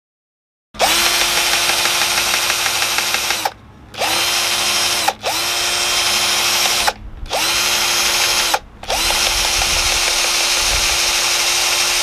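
Cordless drill-driver motor running free in five bursts with short pauses between, each spinning up with a quick rise in pitch and then holding a steady whir.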